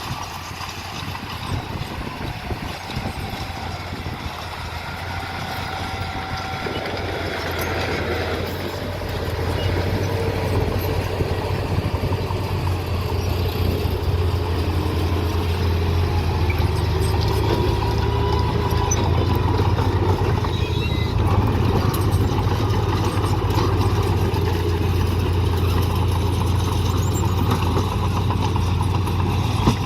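Diesel engine of heavy construction machinery running steadily, growing louder about eight seconds in as the machine works, its pitch drifting with the load.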